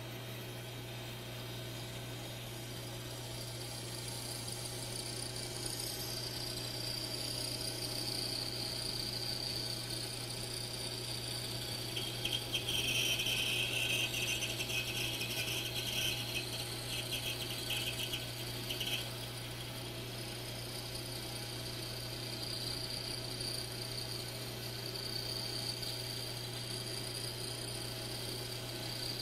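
Bandsaw running with a narrow 1/8-inch, 14-teeth-per-inch blade, steadily cutting a curve through a thick glued-up wood blank over a steady motor hum. The cutting grows louder and harsher for several seconds about midway.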